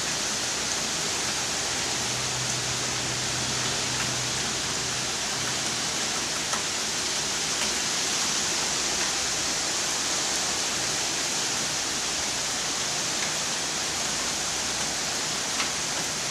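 Heavy hurricane rain pouring down steadily, with high wind.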